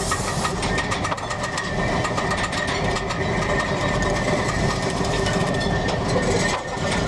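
A machine running with a fast, even rattling clatter.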